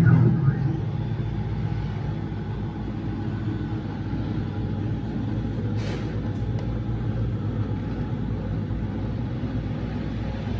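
CNC machine running steadily with a low hum while cutting letter outlines, with one short hiss about six seconds in.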